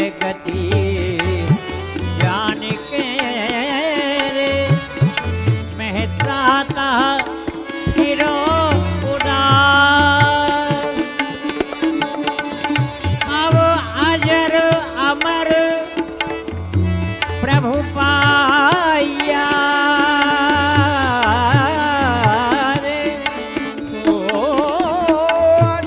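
Indian devotional bhajan music: tabla keeping a repeating rhythm under a wavering, ornamented melody, with no sung words.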